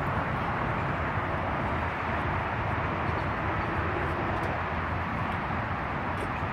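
Steady outdoor background noise: a constant, even rumble and hiss with no distinct events.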